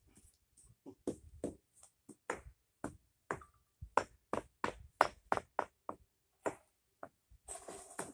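A mallet knocking concrete pavers into place: a run of sharp taps and knocks at an irregular pace, two to three a second, some with a short ring. A brief scraping sound near the end.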